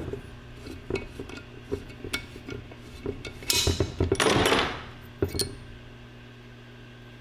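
Metal engine parts clinking and knocking as they are handled on a workbench during a teardown, with a louder brief scraping rush about three and a half seconds in.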